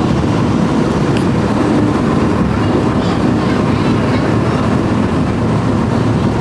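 Steady running noise of a moving monorail train heard from inside the cabin, a loud even rumble with no letup.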